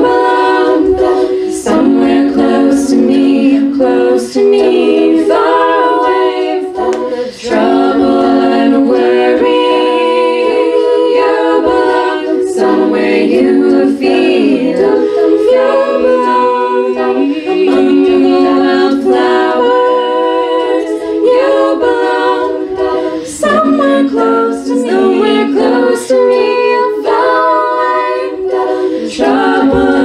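Women's a cappella group singing in several-part harmony into microphones, with no instruments: held chords that shift together every second or two.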